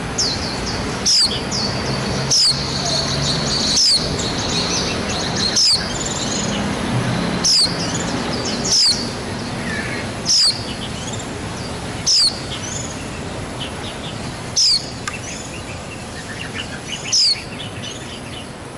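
White-eyes calling: a loud, high, falling chirp repeated every one and a half to two and a half seconds, over a softer twitter of other high chirps.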